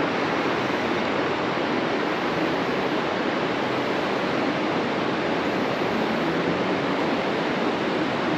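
Rushing water: a steady, unbroken hiss of fast-flowing stream water.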